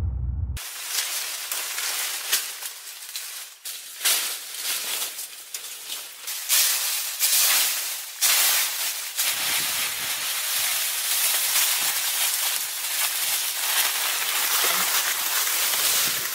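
Tropical forest ambience: a loud, dense high-pitched hiss that rises and falls, broken by irregular short rustles and crunches, and steadier in the second half. Intro music cuts off just as it begins.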